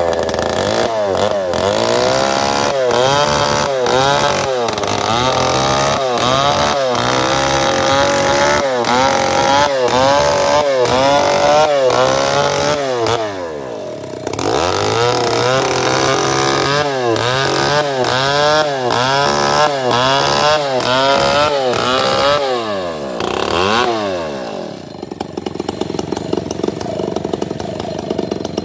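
Stihl 070 two-stroke chainsaw at full throttle ripping along a dead bayur log, its engine screaming with the pitch dipping and recovering over and over as the chain bogs in the tough, stringy wood and struggles to bite. The throttle eases briefly about halfway through, then falls away near the end to a lower, steadier running.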